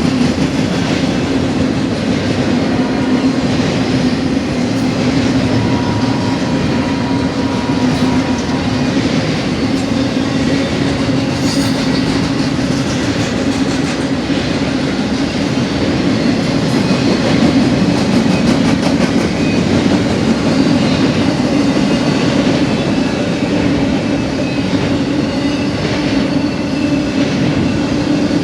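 Intermodal freight train with empty spine cars rolling past at track side: a steady, loud rumble of steel wheels on rail, with clicking from the wheels over the rail joints.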